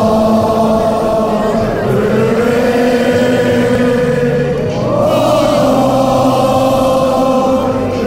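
Many voices singing a slow melody in long held notes, the pitch shifting every two to three seconds.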